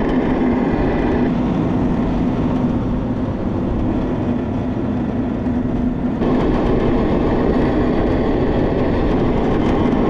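Tarabita cable car running along its steel cable: a steady mechanical hum over a rough low rumble. The sound turns brighter and harsher about six seconds in.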